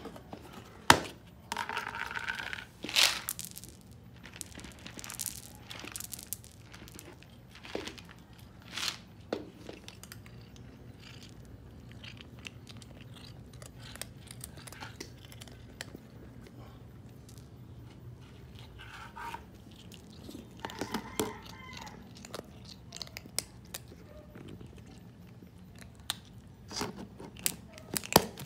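A cat crunching dry dog-food kibble, a scatter of small irregular crunches. A sharp plastic click from the food tub's lid comes about a second in, and the cat gives short meows near the start and again about two-thirds of the way through.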